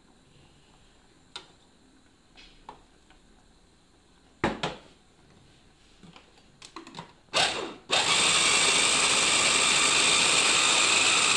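A few clicks and knocks as an electric mini chopper is put together, then about eight seconds in its motor starts and runs steadily, grinding cooked peppers into a purée.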